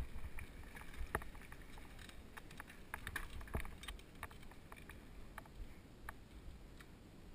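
Mountain bike rolling down a loose gravel trail: tyres crunching over stones, with scattered sharp clicks and rattles from the bike over a low rumble of vibration.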